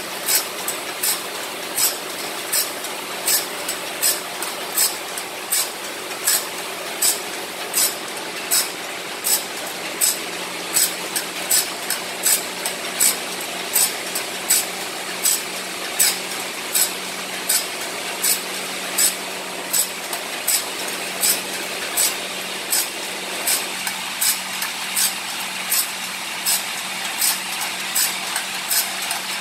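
Automatic bandsaw-blade sharpening machine running: its grinding wheel grinds the teeth of a large sawmill bandsaw blade one by one, giving a short high-pitched rasp about three times every two seconds over the steady hum of the machine's motor.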